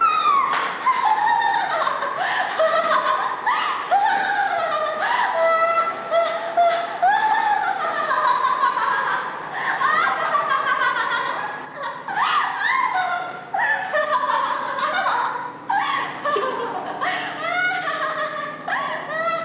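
A woman laughing and giggling almost without a break, in high-pitched, wavering peals.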